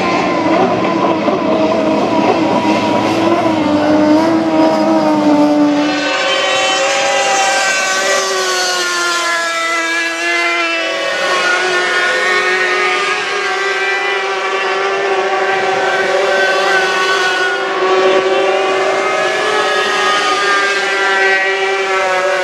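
Racing powerboats' two-stroke outboard engines running at high revs: a loud, high-pitched whine, with more than one engine at once. About ten seconds in the pitch dips and climbs again.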